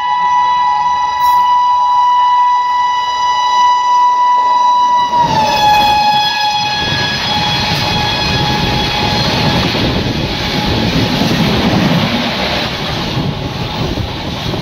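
An express train overtaking at speed on the next track. Its locomotive horn holds one long note that drops in pitch about five seconds in as the engine goes by. Then comes the loud rumble and wheel clatter of its coaches running past.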